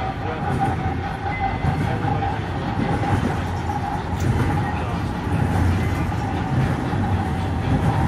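Model railroad freight cars rolling past on the track: a steady rumble of small wheels on rail joints, with a thin steady whine running under it.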